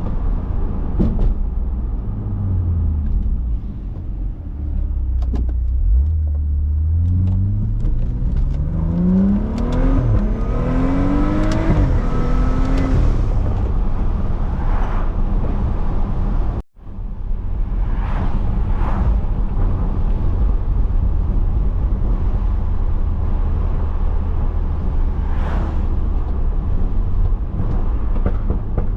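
Tuned, catless BMW 335i turbocharged straight-six under way. The engine note rises in pitch through a hard pull midway, then settles into a steady low drone while cruising. The sound drops out for a moment just past halfway.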